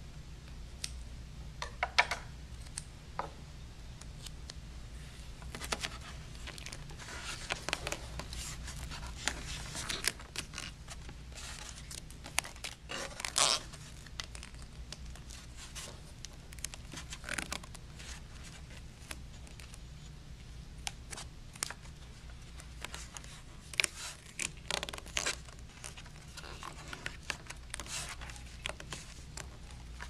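Vinyl electrical tape being pulled off the roll and wrapped around a cable connector: irregular crinkling, tearing and scraping of tape and fingers, over a steady low hum.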